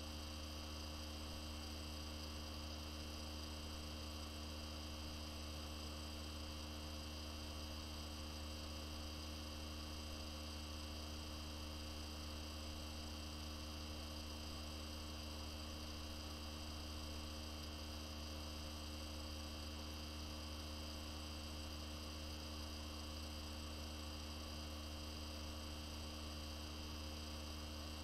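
Steady low electrical hum with a faint hiss and a few fainter steady tones above it.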